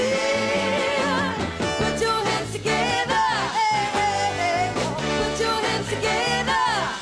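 Female soul vocal trio singing with a live backing band over a steady bass line and beat.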